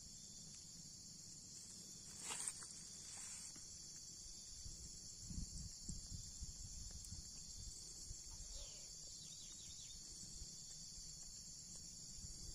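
Faint, steady high-pitched chorus of insects, crickets, with a low handling rumble and one short knock about two seconds in.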